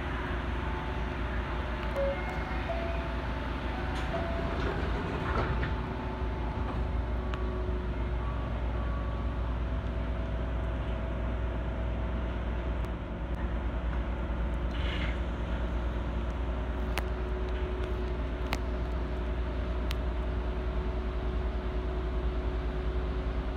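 Steady hum of an Osaka Monorail train heard from inside its front cab while the car stands at a station. There are a few short faint tones and several sharp clicks late on.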